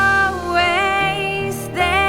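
Background music: a slow, gentle song with long-held, wavering melody notes over steady bass.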